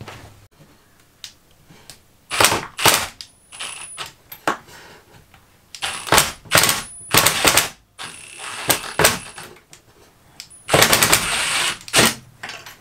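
Milwaukee M18 cordless impact driver hammering as it backs screws out of a cabinet's trim. It comes in several short, rattling bursts, with a longer run of about a second near the end.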